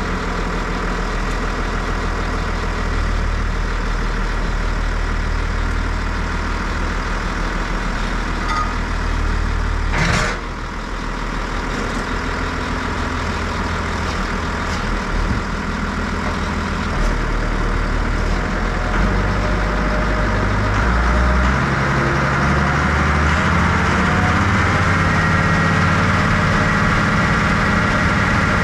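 A John Deere tractor's diesel engine running steadily, with one sharp knock about a third of the way in. In the second half the engine speeds up, its note rising and getting a little louder.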